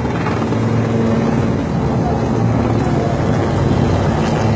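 Helicopter flying low overhead, its rotor and engine making a loud, steady drone with a low hum.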